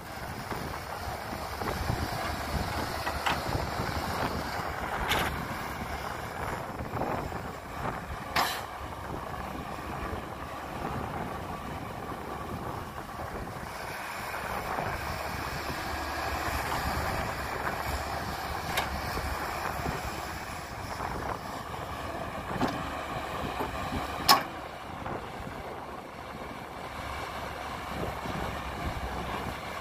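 Caterpillar excavator's diesel engine running with its hydraulics working as it digs and loads soil. A few sharp knocks stand out, the loudest about 8 and 24 seconds in, with wind on the microphone.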